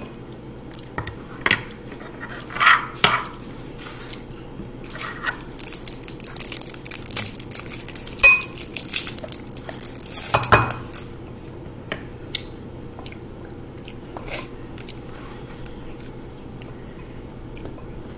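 Metal spoons scraping and clinking on a wooden cutting board as soft ice cream and toppings are chopped and folded, in scattered strokes with the loudest scrape about ten seconds in. After that only a few faint taps.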